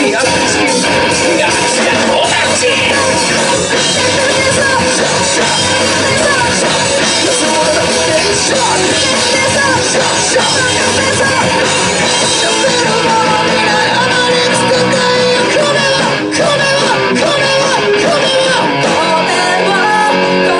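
A rock band playing live: a singer over electric guitar and drums, loud and continuous, heard from among the audience in a small club.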